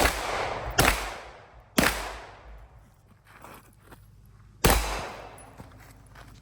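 Four gunshots: three in quick succession about a second apart, then a fourth about three seconds later, each followed by a short ringing echo.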